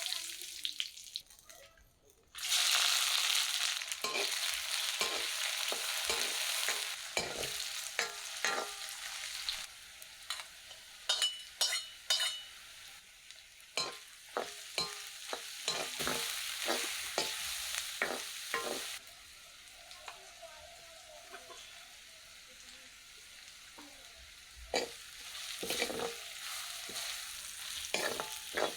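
Chicken frying in hot oil in a pot, sizzling steadily, while a ladle knocks and scrapes against the pot as it is stirred. The sizzling turns loud about two seconds in after a short lull and eases off for a while later on.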